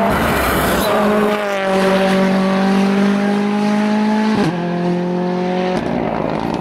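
Drift car's engine held at high revs, pitch creeping slowly up, with a quick gear change about four and a half seconds in, then holding steady again until it gives way to a rough, noisy stretch near the end.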